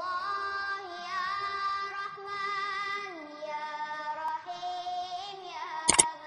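Music with a high singing voice holding wavering notes and sliding between them. Just before the end, one sharp click, the mouse-click effect of a subscribe-button animation.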